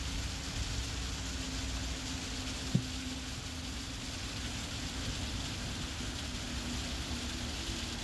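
Steady outdoor background noise, a low rumble under a hiss, with a faint low hum and a single sharp click about three seconds in.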